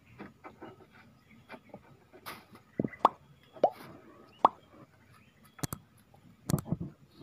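Small water plops and drips as a mesh keep net is worked at the water's surface: several short, sharp plops, each sliding quickly up in pitch, about half a second to a second apart, with a couple of sharper clicks near the end.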